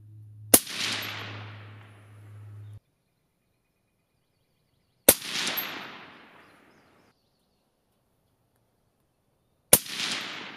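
Three rifle shots from a CMMG Endeavor 300 AR-15 in 6mm ARC, about four and a half seconds apart. Each is a sharp crack followed by a fading echo lasting a second or two.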